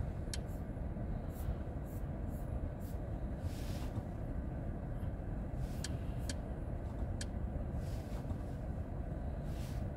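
Steady low hum inside the cabin of a stationary Mercedes-Benz GLS450 SUV with its engine idling, with a few faint clicks as the infotainment controls are worked.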